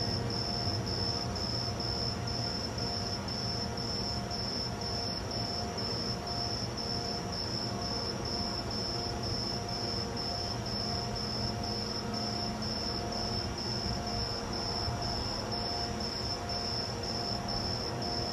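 Steady outdoor background rumble with a high-pitched tone pulsing evenly, about two to three times a second.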